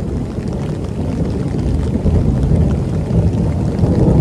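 Heavy rainstorm with a low, continuous rumble that swells louder about two seconds in and again near the end.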